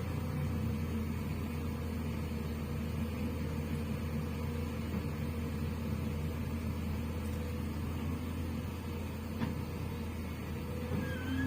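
JCB backhoe loader's diesel engine running at a steady speed, with a faint knock about nine seconds in.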